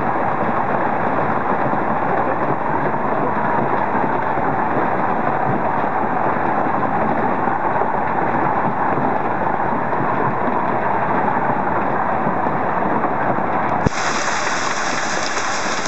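Heavy hailstorm: large hailstones falling thick and steady, pelting cars, the ground and the veranda roof overhead. There is a single sharp click near the end, after which the sound turns brighter.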